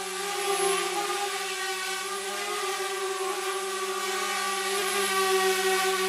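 Multirotor drone's propellers whining steadily in flight, a stack of held tones with a slight dip in pitch about a second in.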